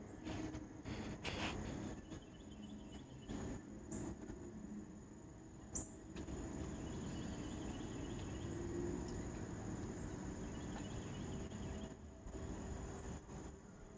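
Insects chirping in short pulsing trills that come and go, over a steady high whine and a low rumble. A few brief knocks in the first few seconds.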